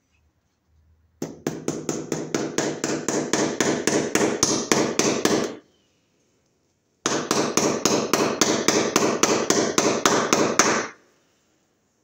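Hammer driving cable staples over Romex cable into a wooden ceiling joist: two runs of quick, even taps, about five a second, each lasting about four seconds, with a short pause between.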